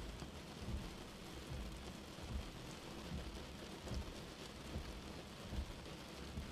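Steady rain falling, with short low thuds about once a second under the hiss.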